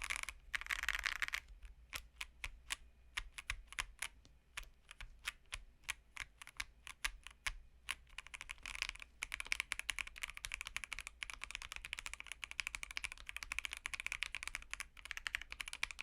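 Keychron Q1 mechanical keyboard with Aqua King switches, a polycarbonate plate and a Taobao tuning kit being typed on. A brief flurry of keys comes first, then separate keystrokes, then fast continuous typing from about eight seconds in.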